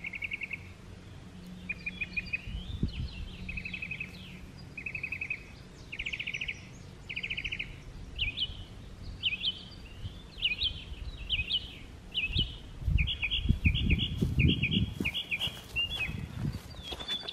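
Songbirds singing: short buzzy trills repeated about once a second, then sharp down-slurred notes that quicken into a rapid series. Close rustling and footsteps in the grass come in near the end.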